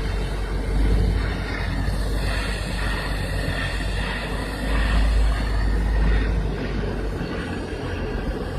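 Pipe welding: a steady, crackling arc noise over a strong low electrical hum, with no breaks.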